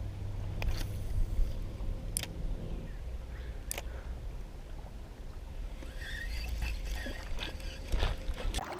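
Wading through a shallow creek: water sloshing and gurgling around the legs, over a low rumble on the microphone, with a few sharp clicks in the first few seconds.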